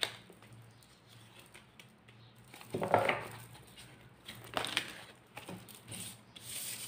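Tarot cards being handled: a few short, soft rustles and light taps as cards are shuffled, drawn and laid down, over a faint steady hum.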